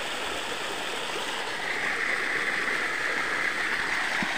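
Small rocky creek running and splashing over stones in a steady wash of water, growing louder about a second and a half in.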